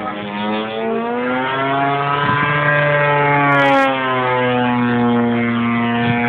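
DLA 64cc two-stroke boxer-twin gasoline engine of a giant-scale RC Yak-54 running in flight. Its note rises over the first couple of seconds, then holds fairly steady.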